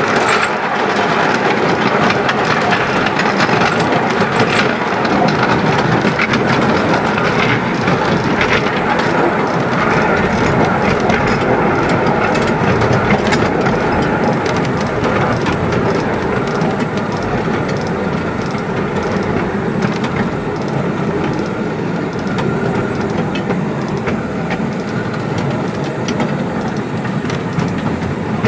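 Narrow-gauge steam train running steadily, the carriage wheels clattering on the track with the locomotive's running noise in front. Steady throughout, easing slightly in the second half.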